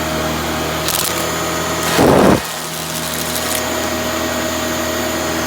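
Shark Rotator Powered Lift-Away NV650 upright vacuum, fitted with a new motor, running with a steady motor whine. There are light clicks about a second in and a short loud bump about two seconds in.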